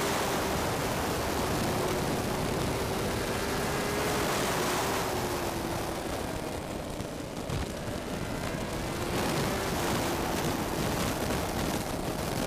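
Honda CBR1000RR-R Fireblade superbike's inline-four running at track speed, heard under heavy wind rush over a camera mounted low by the front fork. The engine note drops about five seconds in, dips lowest around seven seconds, then rises again.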